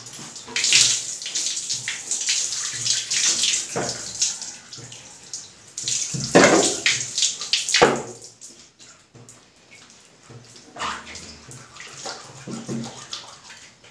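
Water poured from a plastic basin over long hair and splashing into a bathtub as the hair is rinsed. The splashing comes in two loud bouts, about a second in and again around six seconds in, with quieter splashes afterwards.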